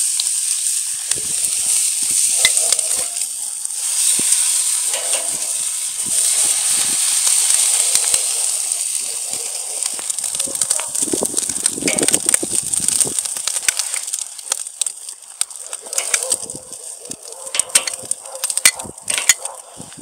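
Bacon strips sizzling on the hot grate of a charcoal kettle grill over direct coals, a steady hiss that dies down in the last few seconds, with scattered clicks of metal tongs near the end.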